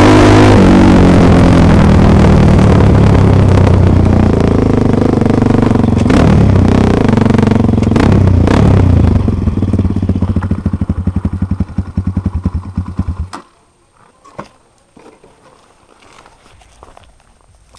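Dirt bike engine slowing off the throttle, its revs falling, then idling with a pulsing beat for a few seconds before it is switched off and cuts out abruptly. Faint clicks and crunches on gravel follow.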